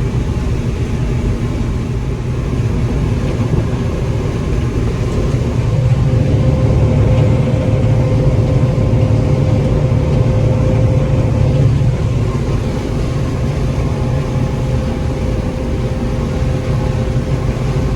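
Combine harvester with a corn head running while moving into the corn: a loud, steady low rumble, with a steady whine that comes in about six seconds in.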